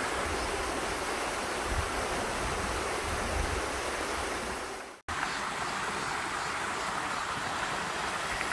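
Mountain stream running over granite rock and a small waterfall: a steady rush of water. It cuts out for an instant about halfway through, then carries on.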